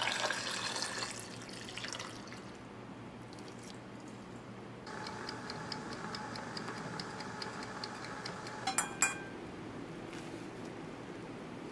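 Water poured from a kettle into a glass pot of peeled potatoes. Then a Dulton wind-up kitchen timer ticks evenly, about four ticks a second, until its bell rings with two quick strikes.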